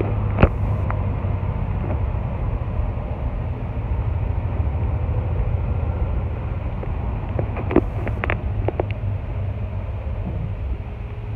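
The 1964 Ford F100 pickup's 300 straight-six is running steadily under way, heard from inside the cab as a low drone mixed with road noise. A few sharp clicks or rattles come about half a second in and again around eight seconds in.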